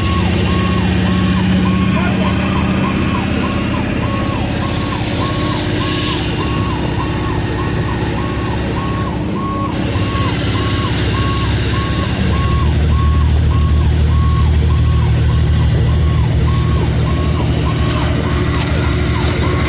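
Fire engine's diesel engine running, with a warning beeper sounding at one pitch about twice a second; the engine grows louder about twelve seconds in.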